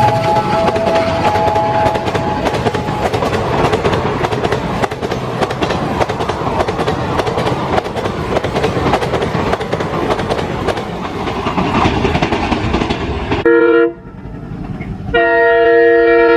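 A train passing at speed, its wheels clattering over the rail joints, after a two-tone locomotive horn that fades out in the first few seconds. Near the end, after an abrupt cut, a locomotive horn sounds two short blasts.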